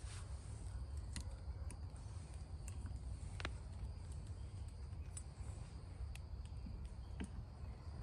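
Scattered light clicks and taps as a hive tool and gloved hand work at the wooden frames of a beehive, one sharper click about halfway through, over a steady low rumble.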